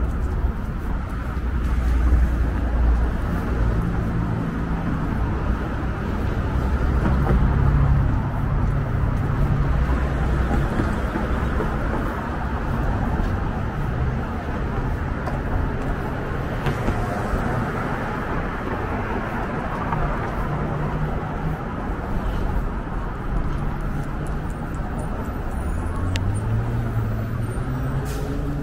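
Downtown road traffic: cars passing along the avenue, a steady hum of engines and tyres that swells and eases, with one engine rising in pitch as it speeds up near the end.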